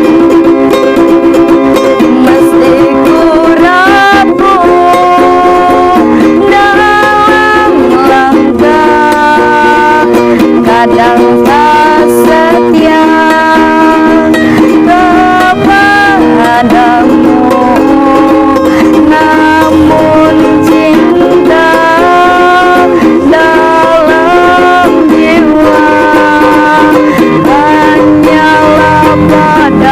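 Music: a plucked-string accompaniment of ukulele or guitar under a melody of held notes that scoop up into pitch, each lasting about one to two seconds.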